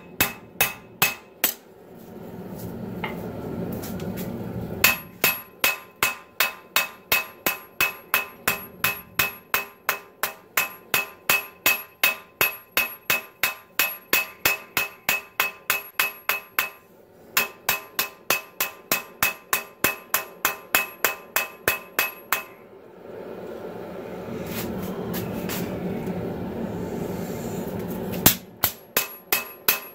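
Hand hammer blows on red-hot 80CrV2 steel on a steel anvil, drawing out a Bowie blade's tip. The blows come in quick runs of about three a second, each with a high ringing tone. They stop twice, early on for about three seconds and near the end for about five seconds, and a steady rushing noise fills those gaps.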